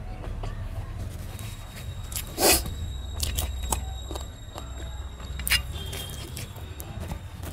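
Eating sounds: fingers mixing rice and curry on a steel plate, and chewing, with many small clicks and two louder sharp smacks, about two and a half and five and a half seconds in, over a steady low hum.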